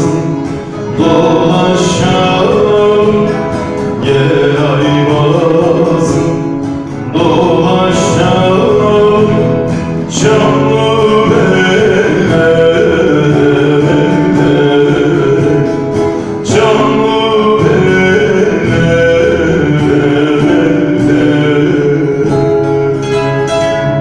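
A man singing a Turkish folk song to his own plucked string accompaniment, in phrases that break every few seconds.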